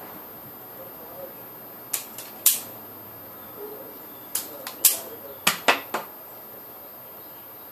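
A run of sharp, short clicks and snaps, about seven of them between two and six seconds in, from hand tools working wire, such as pliers or cutters.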